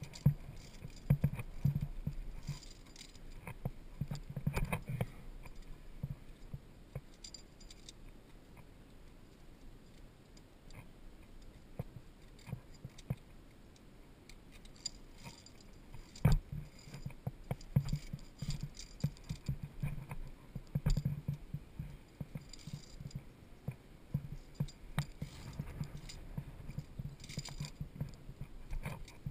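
Via ferrata carabiners and lanyard clinking and jangling against the steel safety cable as a climber moves along it, with scattered sharp clicks and dull knocks. A quieter stretch comes in the middle.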